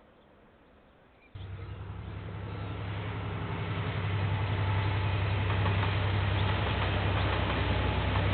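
Diesel-electric locomotive engine rumbling with a steady low hum, cutting in abruptly about a second in and growing louder over the next few seconds as the train approaches, then holding steady.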